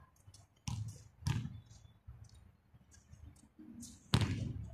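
Basketball bouncing on a concrete court: two bounces about a second in, half a second apart, then a louder impact near the end.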